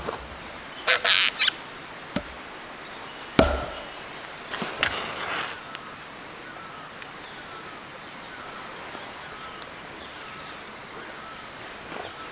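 Firewood and stones being handled at a fire pit: a few short rustling scrapes and one sharp knock in the first half. In the second half a bird repeats a short chirp over and over, about once a second.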